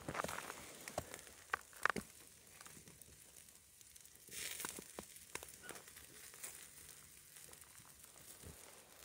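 Charcoal fire under a whole rabbit roasting on a wire grill, with fat sizzling on the coals: a few sharp pops in the first two seconds, a short hiss about four and a half seconds in, then faint crackling.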